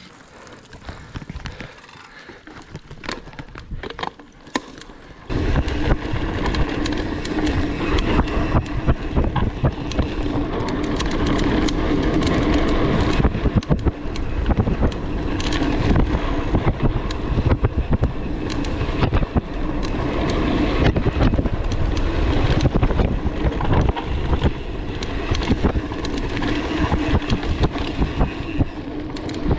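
Mountain bike riding fast down a dirt trail: wind buffeting the camera microphone along with tyres and frame rumbling and rattling over the ground. It starts quieter with light clicks and turns loud and steady about five seconds in as the speed picks up.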